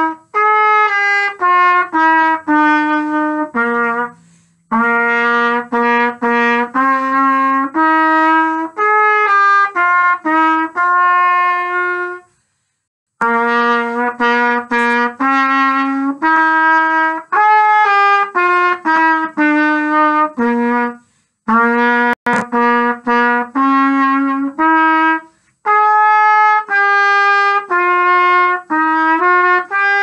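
Solo trumpet playing a simple melody in separate notes of varying length and pitch, with short breaks for breath about 4, 12, 21 and 25 seconds in, and the last note held near the end.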